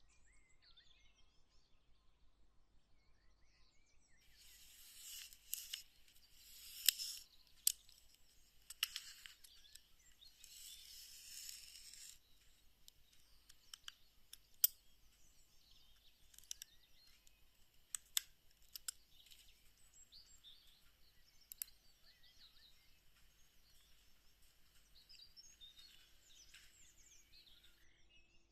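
Quiet close-up handcraft work on a miniature: a few seconds of rustling and scraping with sharp light clicks among it, then single clicks every second or two.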